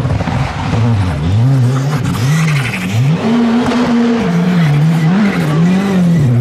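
Rally car engine at high revs, repeatedly rising and falling in pitch as the driver works the throttle and gears through a corner, with the tyres skidding on the loose muddy surface.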